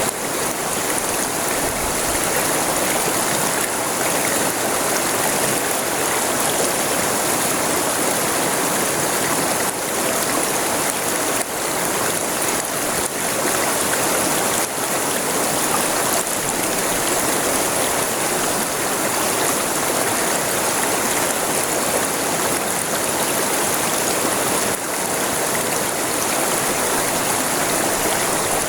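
River water rushing steadily over its bed, an even, unbroken flow.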